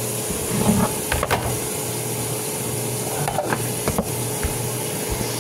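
Stovetop kitchen noise: a steady hiss and low hum, with a few light knocks of cookware about a second in and again around three and four seconds.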